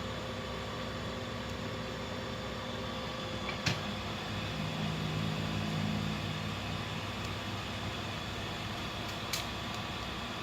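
Filter-cleaning unit of a Panasonic self-cleaning air conditioner running: a steady motor hum with a sharp click a few seconds in and another near the end. A louder low whirr rises in the middle for a couple of seconds.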